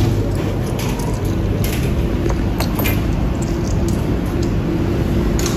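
Electrolux T5550 commercial tumble dryer running: a steady motor and fan hum with the drum turning a load of bed linen. A few light clicks sound now and then.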